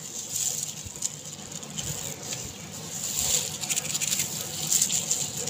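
Thin plastic food gloves crinkling and rustling as hands rub spiced oil onto eggplant slices, an irregular crackly patter with small clicks.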